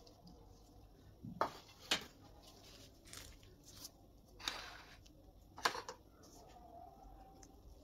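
Kitchen handling sounds: three sharp clinks or knocks of dishes and utensils, with two short scraping rustles between them.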